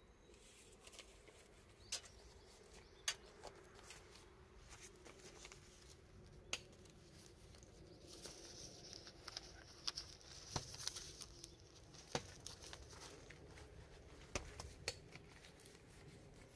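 Faint rustling and crinkling of greenhouse plastic film being handled and fastened to the metal frame, with scattered sharp clicks and taps.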